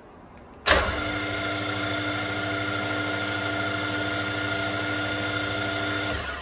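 A ZX-40 (RF-45 clone) mill-drill's spindle motor and gearhead switch on about a second in and run at a steady speed, giving a steady hum with several fixed tones. They shut off near the end.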